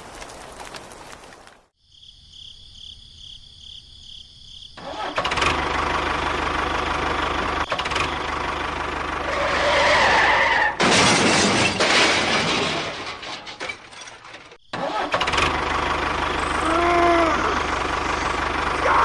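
Engine sounds of mini construction vehicles, cut together in several abrupt segments, with a rapid pulsing high beep for a couple of seconds near the start.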